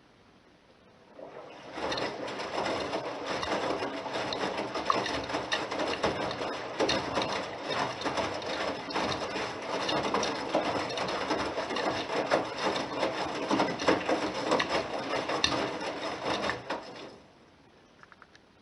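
Bosch Serie 6 front-loading washing machine's drum turning with laundry tumbling inside, a dense run of rubbing and small knocks. It starts about a second in, runs for some sixteen seconds and stops near the end, as the drum does in its turn-and-pause wash rhythm.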